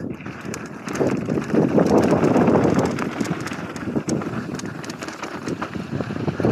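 Mountain bike descending a dirt trail: tyres rolling over loose dirt and gravel with a steady stream of rattles and clicks from the bike over bumps, and wind buffeting the microphone. It gets louder about a second in.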